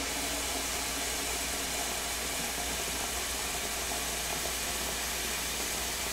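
Kitchen faucet running a steady stream of warm water into a stainless steel pot in the sink, the pot filling toward halfway.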